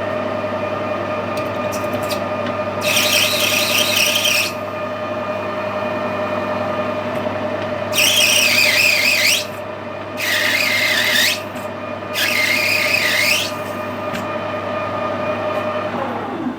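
Metal lathe running steadily while a cutting tool squeals four times as it bites into the spinning brass bar, each squeal a second or so long with a wavering high pitch. Near the end the lathe winds down, its tone falling away.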